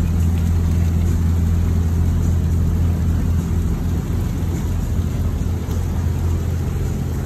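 A boat's engine running with a steady low drone, as the junk sets out.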